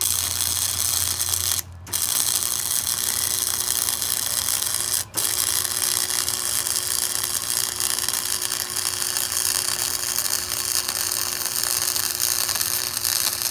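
Wire-feed welder arc crackling steadily as a bead is laid, stopping briefly twice, just under two seconds in and again about five seconds in, where the trigger is let off.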